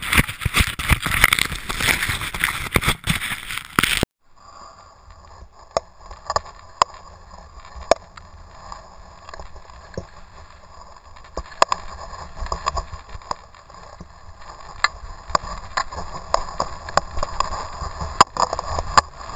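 Skier's body-worn action camera picking up the rush of air and snow: a loud blowing, crackling noise for the first four seconds that cuts off abruptly, then the hiss and scrape of skis on snow with scattered sharp clicks and knocks, growing louder toward the end of the run.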